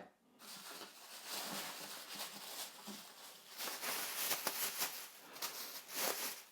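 Plastic packaging rustling and crinkling as it is handled, in uneven bursts.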